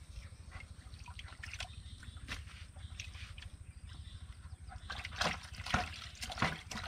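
Faint trickling water under a low steady rumble, with a few light clicks and knocks about five to six and a half seconds in.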